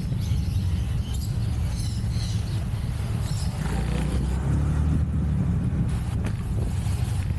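A steady low rumble, like road traffic or wind on the microphone.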